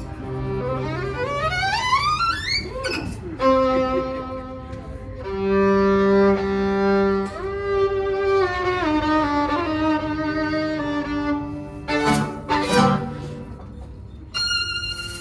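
Solo violin playing a virtuosic intro: fast rising runs, then held notes and slides, two short sharp strokes a little after halfway, and a high held note near the end, over low sustained accompanying notes.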